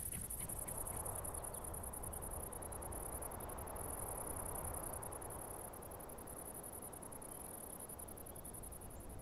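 Field crickets chirring in a steady, high-pitched, fast-pulsing trill over a soft hiss of evening field ambience.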